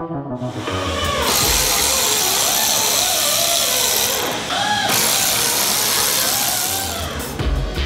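Cordless power tool driving fasteners in a car's wheel well: it runs about three seconds, stops briefly, then runs again for about two seconds.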